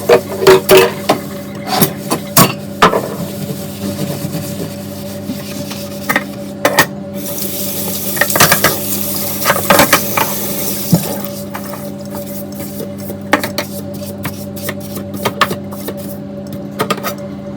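Dishes clinking and knocking against each other while being washed in a sink, with a stretch of running water about halfway through and a steady hum underneath.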